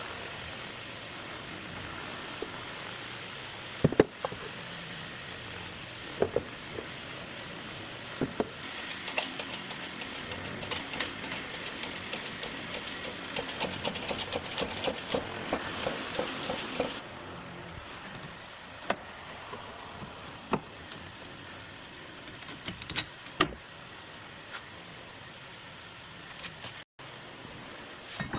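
Hand tools working on a UTV's wheel hub during a wheel bearing replacement: scattered sharp metal knocks, then about eight seconds of rapid clicking and rattling, then a few more knocks.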